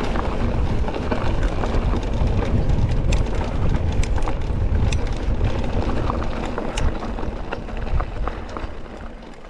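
E-mountain bike ridden with its motor switched off over a rough track: wind rumble on the helmet or bar camera's microphone, with the tyres and frame giving many small clicks and rattles over stones. It gets somewhat quieter near the end.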